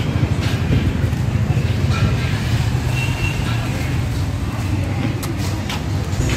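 Steady low engine rumble, with a few light clicks near the end.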